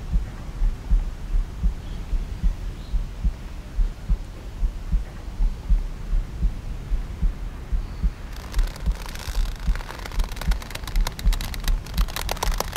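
Low heartbeat-like thudding pulse on a film soundtrack, repeating in a regular rhythm. About eight seconds in, a rapid crackle of sharp clicks joins it and grows denser toward the end.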